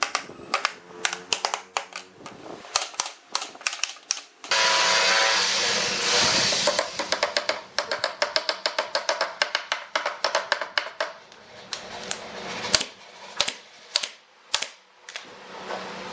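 Claw hammer tapping on pine pallet boards, many quick light blows, at times about four or five a second. About four and a half seconds in, a louder steady noise with a hum runs for about two seconds.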